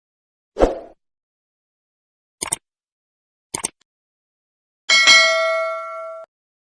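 Edited intro sound effects: a thump, two short sharp clicks about a second apart, then a bright bell-like chime of several steady tones that rings for over a second and cuts off suddenly.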